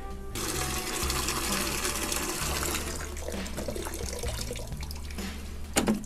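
Water running from a barn water hydrant into a plastic bucket. The flow starts abruptly about half a second in and runs steadily, and a sharp knock comes near the end.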